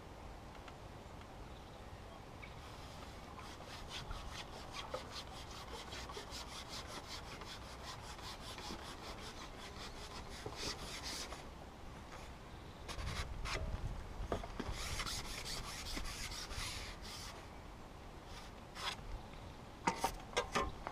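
Faint rubbing and scraping from a Maver carbon fishing pole being handled and moved, with a low rumble around the middle and a few light clicks near the end.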